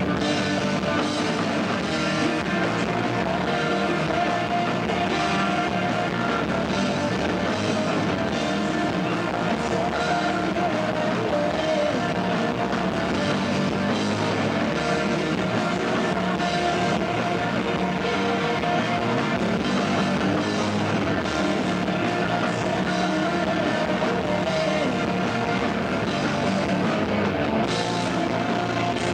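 Live rock band playing, with distorted electric guitars and a drum kit at full volume and some singing, recorded loud and dense in a club.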